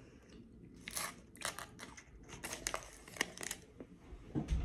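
Quiet chewing of a piece of dark chocolate bar, with scattered soft crackles from the foil wrapper held in hand and a low bump near the end.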